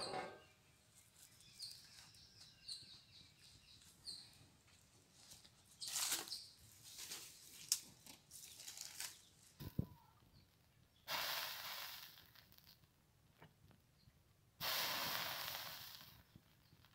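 Liquid sizzling on a hot griddle over a wood fire: two hissing bursts, each about a second and a half long, the second fading away as it steams off, a sign the griddle is hot. Faint crackles and knocks come before them.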